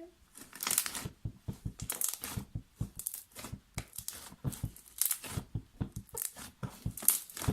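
Homemade slime being stretched and squeezed by hand, crackling and popping as air bubbles in it burst: irregular crackles and short hissy bursts, a few a second.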